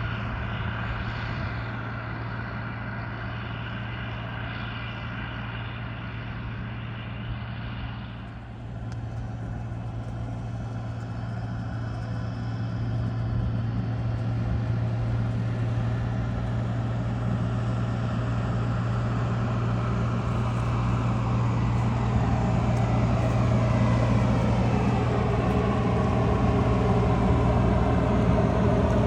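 Diesel engine of farm machinery running steadily with a strong low hum, growing gradually louder over the second half.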